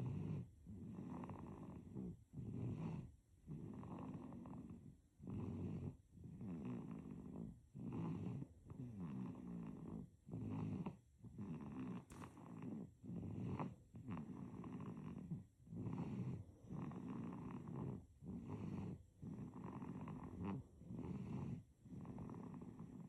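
Sleeping baby snoring: a rattly snore on each breath, in quick, even breaths about one a second.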